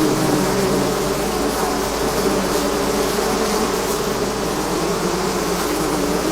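Swarm of honeybees buzzing, many wingbeats overlapping into a steady, dense drone.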